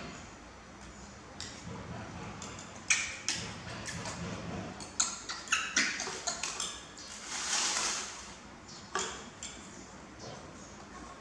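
Metal spoon clinking and scraping against a ceramic plate of fried rice: a run of light, sharp clinks, some ringing briefly, busiest from about three to seven seconds in.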